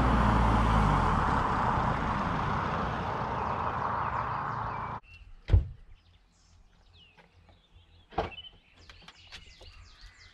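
A car driving in with its engine note falling as it slows. It cuts off abruptly and gives way to faint birds chirping and two sharp thumps about two and a half seconds apart.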